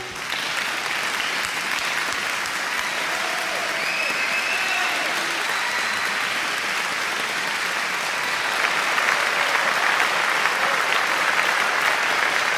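Audience applause, a steady dense clapping that grows louder about two-thirds of the way through.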